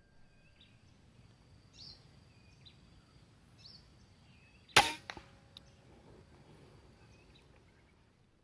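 A single sharp air rifle shot about halfway through, followed by a few fainter knocks, with faint short bird chirps and a steady high insect tone in the background.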